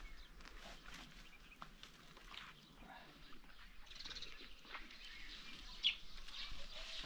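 Faint outdoor ambience with scattered light ticks and one short high-pitched animal call about six seconds in.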